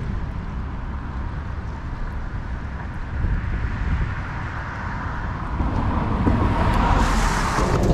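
Wind rumbling on the microphone over road traffic on a bridge, with a vehicle's tyre hiss swelling louder over the last few seconds.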